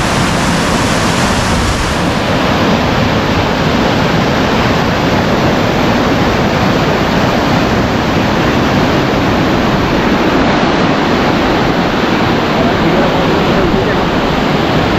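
Fast-flowing river water rushing below a barrage, heard from right at the water's edge: a loud, steady, even noise with no let-up.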